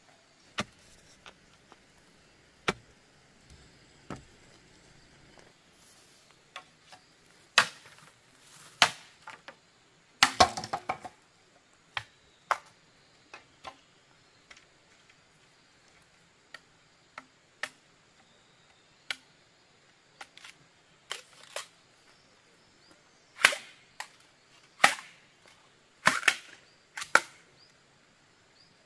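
Bamboo poles knocking and clacking against each other as they are handled and set up: irregular sharp knocks, with a quick flurry about ten seconds in and several loud ones near the end.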